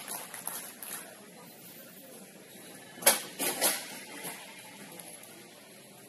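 A sharp knock about three seconds in, then two softer knocks close behind it, over faint background noise.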